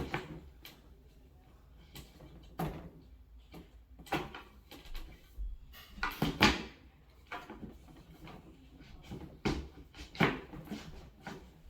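Flat-pack Aldi SOHL accent cabinet parts knocking and clunking as the top is worked down onto the frame to sit flat and flush: several separate, irregular knocks, the loudest about six and a half seconds in.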